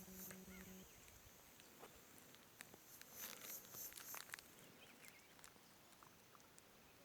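Near silence: faint outdoor nature ambience, with a high insect hiss and scattered faint ticks and chirps. A low steady hum stops within the first second.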